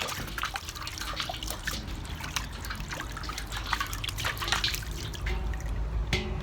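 Running water trickling and splashing in quick, irregular drips and spatters.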